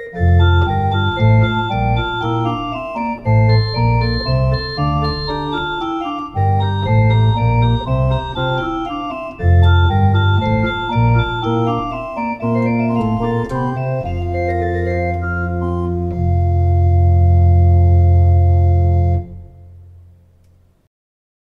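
Two-manual electronic home organ playing a piece in full chords over a low bass line, ending on a long, loud held chord that stops about two seconds before the end and fades to silence.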